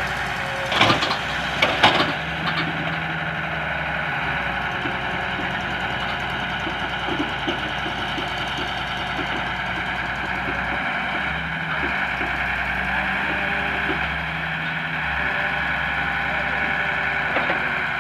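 Diesel engines of an excavator and a tractor running steadily under work, with two sharp knocks about one and two seconds in.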